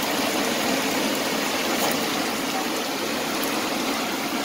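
Floodwater rushing down a street, a steady, unbroken rush of water.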